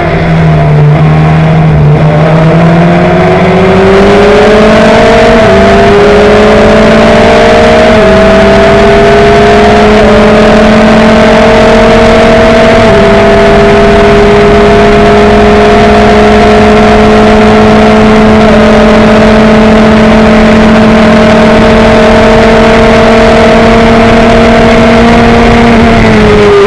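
Onboard sound of a Tiga SC84 Sports 2000 racer's Ford 2.0-litre four-cylinder engine under hard acceleration out of a corner and up a straight. The engine climbs in pitch through three quick upshifts, then holds at high revs before dropping off near the end as the driver lifts. Heavy wind rush over the open cockpit runs under it.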